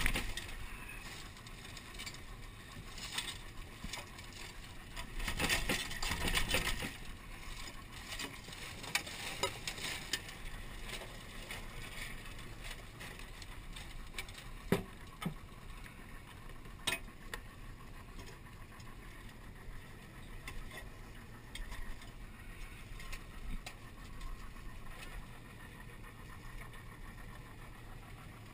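Irregular clicking, rustling and knocking of live crawfish being dumped and sorted by hand in a metal tray on an aluminium skiff, louder about five to seven seconds in.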